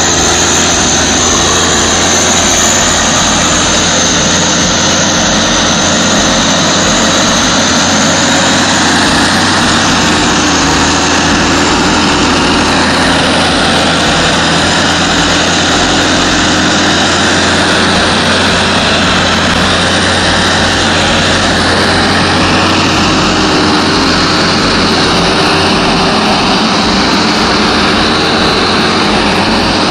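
Diesel engine of a forestry forwarder running hard while the machine works through deep mud, a loud, steady drone.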